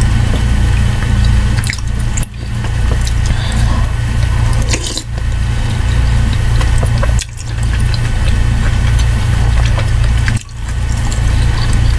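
Slurping and sipping of hot soup from a metal spoon, wet mouth and liquid sounds with small clicks, over a loud steady low hum. The whole sound briefly drops out four times.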